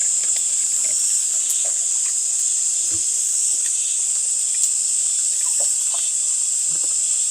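Steady high-pitched chorus of insects, a continuous shrill drone, with a few faint soft knocks.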